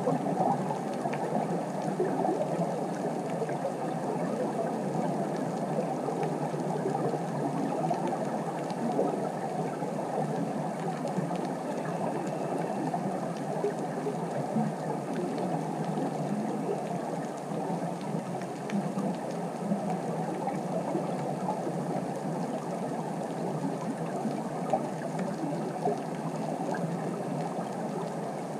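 Underwater ambient noise heard through a camera's waterproof housing: a steady, muffled wash of fine crackle, with no breathing or bubble bursts.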